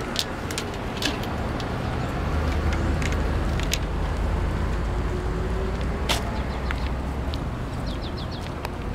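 Steady low rumble of a vehicle engine, swelling a couple of seconds in and easing off after, with scattered sharp clicks over it. Near the end a bird chirps several times in quick succession.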